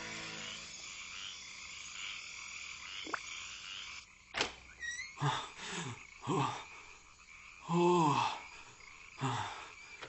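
Music fading out. After a sharp click, a series of short, low, croak-like vocal sounds, about one a second, with one longer one about eight seconds in.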